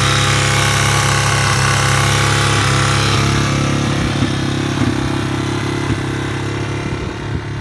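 2001 Yamaha TT-R225's single-cylinder four-stroke engine running at idle, with a ticking from the top end that the owner cannot account for. The higher hiss over the engine fades about halfway through, and a few sharp ticks stand out near the end.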